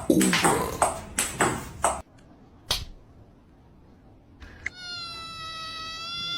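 Domestic cat vocalising: a quick run of short, sharp noisy bursts, then after a sudden break a long drawn-out meow that starts late on and holds, rising a little.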